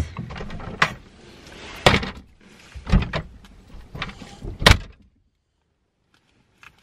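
Knocks and clunks of a car's doors and interior being handled: four sharp knocks about a second apart, the last and loudest about four and a half seconds in, then about two seconds of dead silence.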